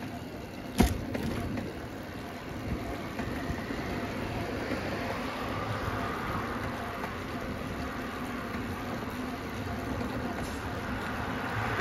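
Steady rolling and wind noise from a bicycle ridden along a paved path, with one sharp knock about a second in.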